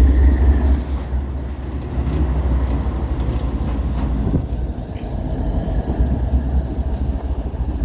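GE ES40DC diesel locomotive moving slowly in reverse with a short train, giving a steady low engine rumble.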